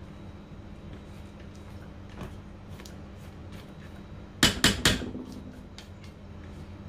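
A spatula scraping around a stainless steel mixing bowl with faint light scrapes, then three sharp knocks in quick succession a little past halfway, the metal bowl ringing briefly after them.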